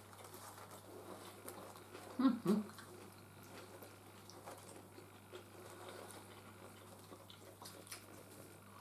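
Quiet eating: metal forks clicking and scraping in styrofoam takeaway containers, and chewing of kebab meat and fries. A brief vocal sound comes about two seconds in.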